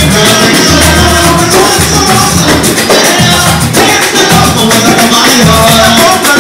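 Loud pagode music: a quick, busy percussion rhythm with jingling, shaker-like strokes over a pulsing bass line.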